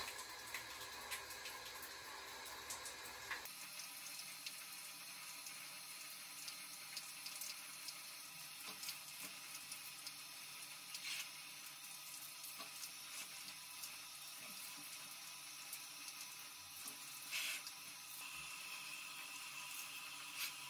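Bathroom sink tap running faintly into the basin, with occasional splashes as hands scoop water onto a face.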